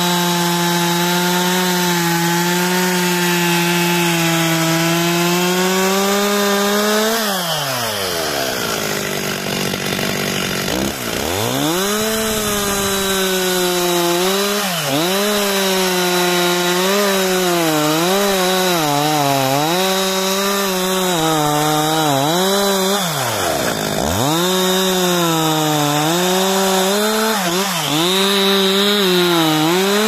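Stihl MS 361 two-stroke chainsaw cutting through a thick tree trunk near full throttle, the engine note wavering as the chain loads in the wood. Twice, about a quarter of the way in and again about three-quarters through, the revs drop right down and then climb back to cutting speed.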